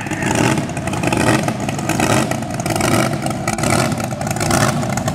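Racing hydroplane's engine running hard at speed, a loud, rough, continuous noise.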